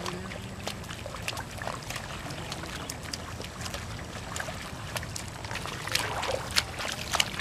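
Small irregular splashes and squelches of hands and boots working in the water and mud of a flooded rice paddy as seedlings are pushed into the mud, busier near the end, over a steady low rumble.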